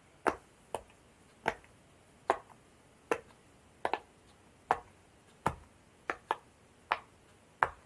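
A fidget toy being worked by hand, giving about a dozen sharp clicks or snaps at an uneven pace of roughly one every half second to a second.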